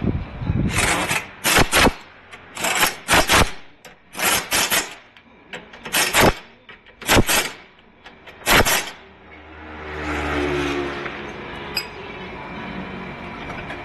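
A workshop tool run in about seven short, loud bursts over the first nine seconds, followed by a lower, steadier hum for about two seconds.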